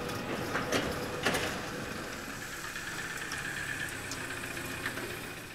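Garage door opener running as the sectional door rolls up, with a few clatters in the first second or so, then the small engine of a Nissan Versa-based car running as it pulls out.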